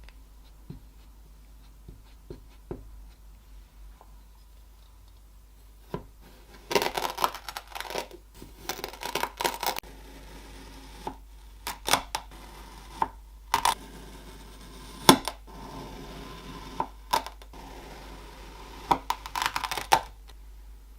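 Kinetic sand being worked close to the microphone: clusters of crisp crunching and scraping, with single sharp clicks between them. Only faint taps sound in the first few seconds.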